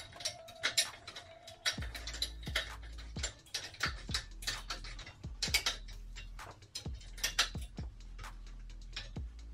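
Background music with a ticking, clicking percussion beat over a low bass line.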